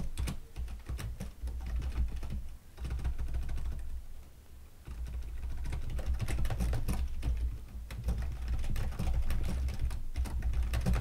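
Typing on a computer keyboard: rapid key clicks, thinning out to a brief lull about halfway, then a steady run of typing again.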